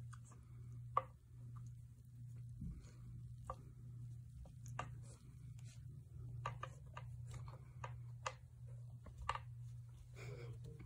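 A golden retriever puppy playing with an ice cube: faint, irregular clicks and taps of the ice against the stone step and the puppy's teeth, over a steady low hum.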